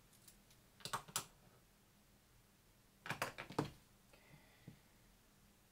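A few sharp clicks and taps at a desk: two or three about a second in as a pen is put down, then a quick run of clicks just after three seconds in from buttons pressed on a mobile phone.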